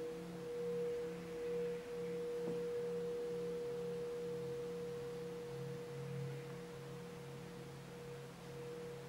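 Several Tibetan singing bowls ringing together: long, overlapping sustained tones at a few different pitches, the lowest one wavering in a slow pulse about twice a second.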